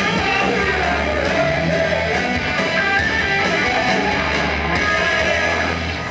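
Live hard rock band playing loud, with distorted electric guitars, drums and a singer's voice. The cymbal strokes stop about three-quarters of the way through, leaving a held, ringing chord.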